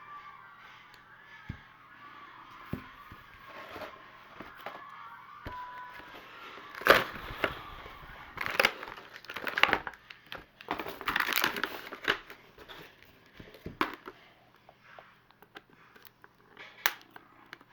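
Toy packaging being handled: crinkling and rustling with sharp clicks, busiest in the middle stretch and fading to occasional handling noises near the end.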